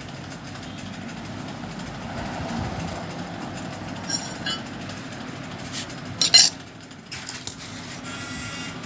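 Metal tools or parts clinking and clattering: a couple of light clinks about four seconds in and a louder short clatter about two seconds later, over a steady low hum.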